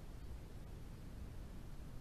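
Faint steady low rumble and hiss from a trail camera's microphone, with no distinct sound from the fox.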